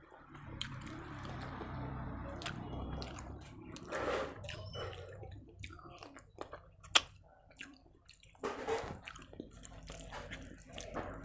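A person eating rice and curry by hand: wet mouth smacks and chewing clicks, with one sharp click about seven seconds in.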